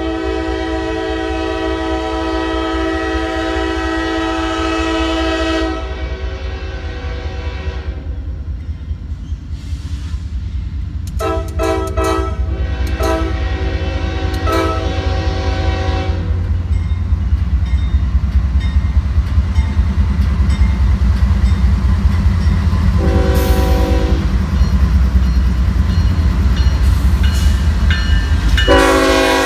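Norfolk Southern diesel freight locomotives sounding their air horns: a long blast at the start, a run of short blasts in the middle, a brief one later and another starting near the end. Under the horns the deep rumble of the locomotive engines and rolling train grows louder as the trains draw close.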